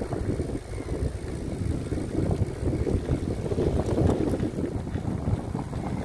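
Wind buffeting the microphone of a camera carried on a moving bicycle: a gusting low rumble, strongest about four seconds in.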